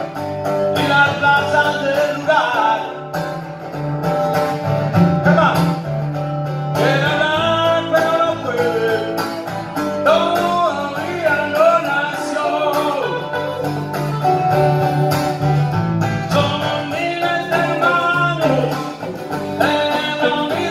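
Live band playing a song: strummed acoustic guitar with a second guitar and hand drums, under a gliding lead melody line.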